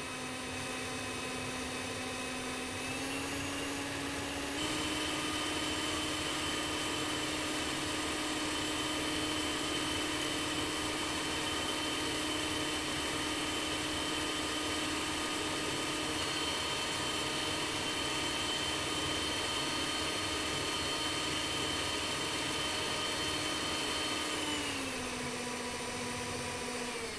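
Sunbeam Mixmaster stand mixer running, its beaters whipping cream in a glass bowl: a steady motor whine that steps up in pitch twice in the first few seconds as the speed goes up, and drops near the end as the speed dial is turned down.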